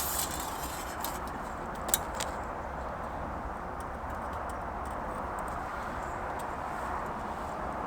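Sharp metallic clicks, one at the start and another about two seconds in, as bulldog clips on titanium tent-peg legs are snapped onto a thin titanium table sheet, over a steady background hiss.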